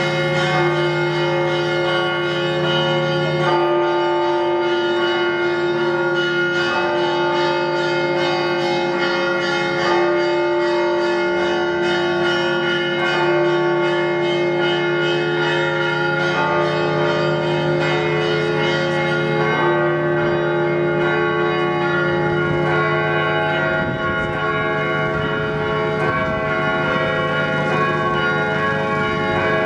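Several church bells ringing together in a continuous peal, many tones sounding over one another. The mix of bells shifts about three and a half seconds in, and again near twenty seconds.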